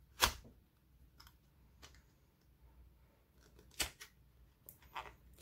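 Scissors snipping at the packing tape on a small cardboard box: a few short, sharp snips, the loudest about a quarter second in and another near four seconds, with fainter ones between.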